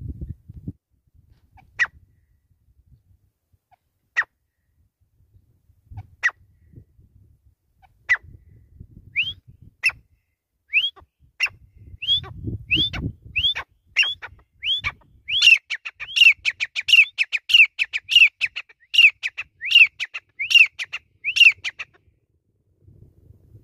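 Grey francolin calling: single sharp notes a couple of seconds apart, quickening midway into a fast run of high, hooked notes about three a second that stops abruptly near the end.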